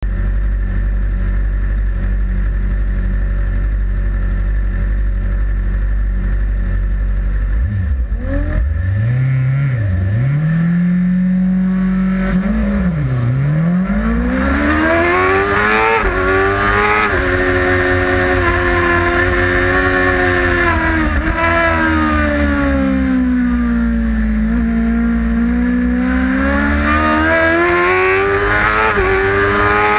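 Heavyweight supersport race motorcycle's engine, heard onboard: a steady low rumble at first, then from about eight seconds in it launches and revs up through the gears, the pitch climbing and dropping back at each upshift. Later the engine note falls away and climbs again as the rider slows and accelerates through the corners.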